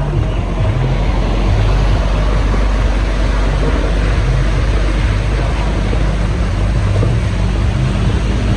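Heavy rain falling, a loud steady hiss with a deep, uneven rumble of wind buffeting the microphone.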